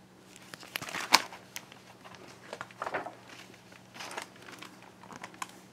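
Paper rustling and crinkling with a string of sharp clicks and taps as a hardcover picture book is handled and its page turned. The loudest click comes about a second in.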